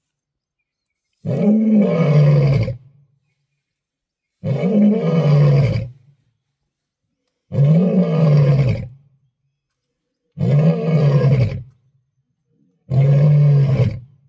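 Male lion roaring: five long, deep calls about every three seconds, each rising a little in pitch and then falling.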